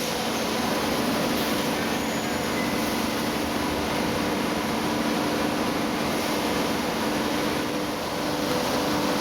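Industrial machinery running steadily: a constant hum with a few held tones over an even mechanical noise.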